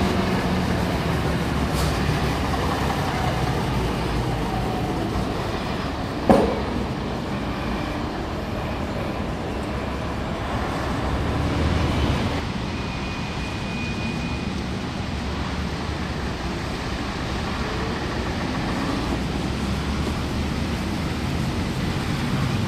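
Vintage London double-decker buses running along a wet road, their diesel engines rumbling steadily under tyre hiss. There is one sharp knock about six seconds in, and the sound shifts abruptly about twelve seconds in.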